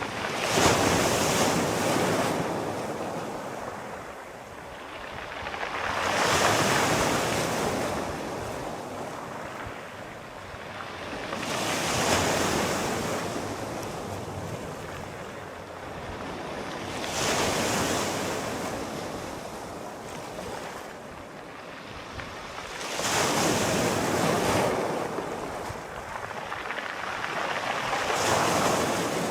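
Sea waves breaking on the shore, each surge swelling and washing out again, one about every five to six seconds.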